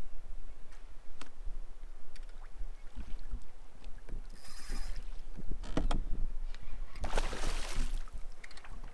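Hooked fish thrashing and splashing at the surface beside a kayak, loudest in a burst of splashing near the end, with scattered knocks of gear against the hull over a low steady rumble.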